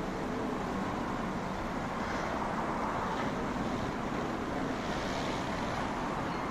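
Steady road and engine noise of a car driving, with no clear separate events.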